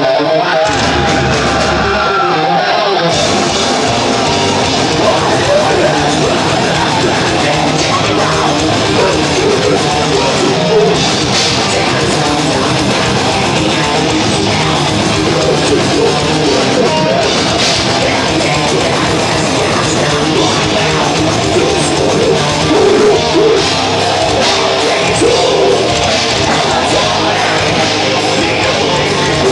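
Melodic death metal band playing live: distorted electric guitars, bass and drums, loud and dense. The sound is thinner for the first three seconds, then the full band comes in.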